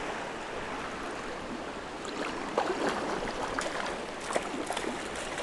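Creek water flowing steadily, with a few faint short clicks and splashes in the second half.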